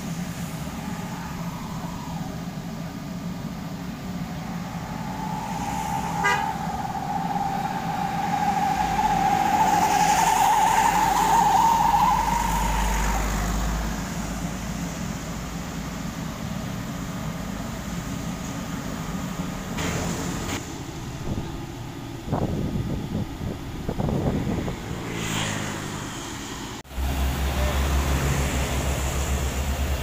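Asphalt distributor truck running with a steady engine hum. A wavering tone rises slightly for several seconds near the middle, and a few knocks sound later. Near the end the engine is louder with a low, even throb.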